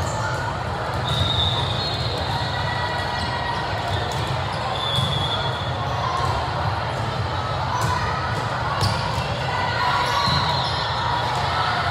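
Volleyball rally in a large echoing gym: the ball is struck several times, and sneakers squeak briefly on the court, with voices of players and spectators underneath.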